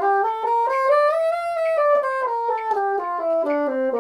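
Bassoon playing a scale: even, steady notes at about four a second, stepping up to a top note about a second and a half in and then stepping back down.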